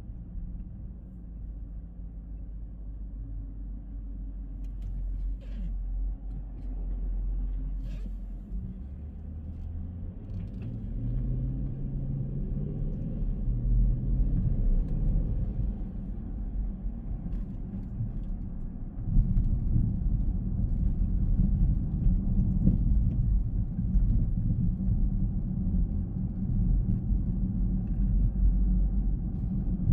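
Car driving in traffic, a steady low engine and road rumble. The engine note climbs as it accelerates, and the rumble grows suddenly louder about two-thirds of the way through.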